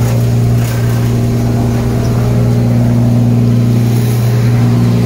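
FiatAgri 115-90 tractor engine running at a steady speed, driving the Farmi CH27 wood chipper through the PTO. A loud, even hum, with a slight change in pitch about four seconds in.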